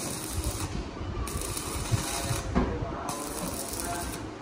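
Metalworking on a car body: three on-off bursts of crackling hiss, each about a second long, with a few clanks of metal between them.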